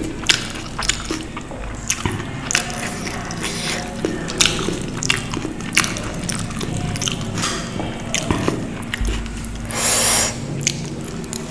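Close-miked eating by hand: wet chewing and frequent mouth clicks, with tandoori roti being torn and fingers scooping gravy-soaked paneer, and a short breathy rush near the end.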